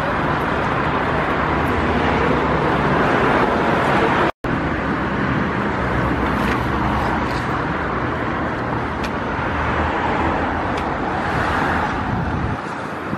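Steady road traffic noise from cars in a city street. The sound drops out completely for a moment about four seconds in.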